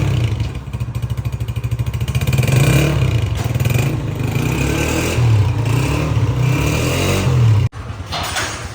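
Honda CG 125's air-cooled single-cylinder four-stroke engine running with a pulsing exhaust beat, revved up and back down a few times. Near the end the sound drops abruptly to a quieter idle.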